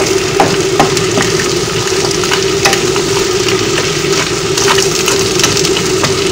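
Mixed vegetables (carrots, green beans, sweet corn) sizzling in a little oil in a wok while a wooden spoon stirs them, with scattered clicks and scrapes of the spoon against the pan and a steady hum underneath.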